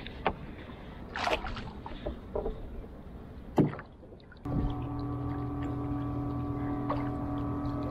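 Small wooden canoe being paddled, with a few sharp wooden knocks of the paddle, the loudest about three and a half seconds in. About four and a half seconds in the sound changes suddenly to a steady low hum with an unchanging pitch.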